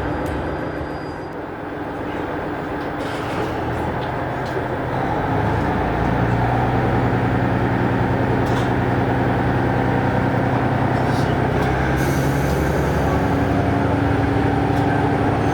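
Diesel railcar heard from inside the cabin while running: a rumble with a steady engine hum that gets louder about six seconds in, and a few sharp clicks from the track.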